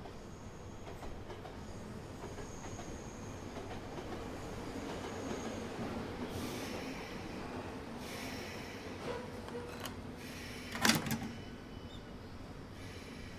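A steady mechanical rumble that swells in the middle and eases off again, with one sharp clack about eleven seconds in.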